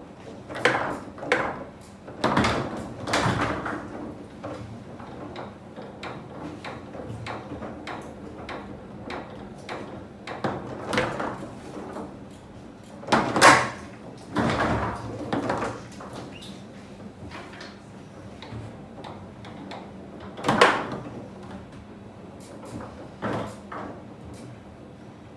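Foosball table in play: irregular sharp clacks of the ball being struck and rods knocking, with a few louder bangs, the loudest about halfway through and again near the end.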